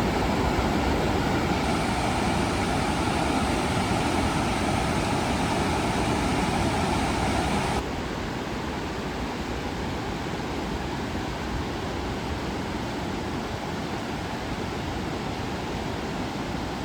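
Steady rushing of a large waterfall, Kinuseo Falls, a dense even roar of falling water. About eight seconds in it abruptly drops a little in level and changes tone, then carries on steadily.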